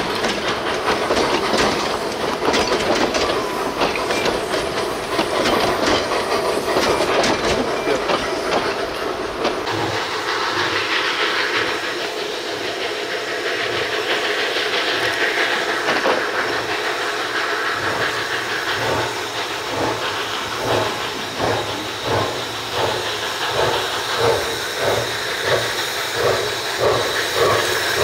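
Narrow-gauge steam train running: wheels clattering over the rails, with steam hissing. In the last several seconds the sound settles into a regular beat of a little over one stroke a second.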